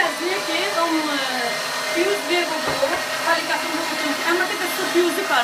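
Geepas electric meat grinder running steadily: a constant motor hum with several steady tones.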